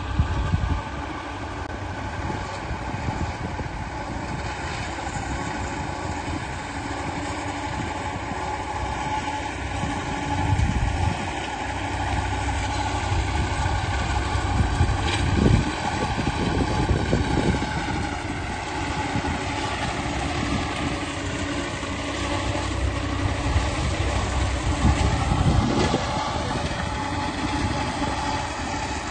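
Tractor diesel engine running steadily at a constant speed, swelling a little louder a few times.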